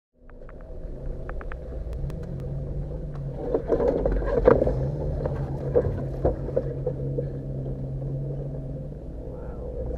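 Jeep engine running steadily at low revs as it crawls over a rocky trail, with a cluster of knocks and clunks from the suspension and body jolting over rock, loudest a few seconds in.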